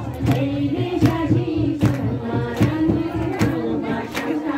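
A group of voices singing together in long held notes, with a sharp beat keeping time about every three-quarters of a second.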